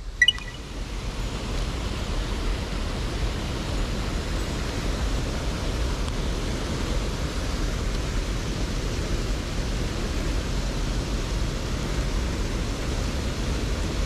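Steady rushing of stream water pouring over a small weir into the pool below, with one sharp click just after the start.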